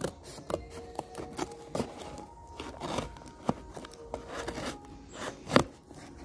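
Scissors cutting through packing tape and cardboard on a parcel: a run of irregular sharp snips and crackles, the loudest a little over five seconds in.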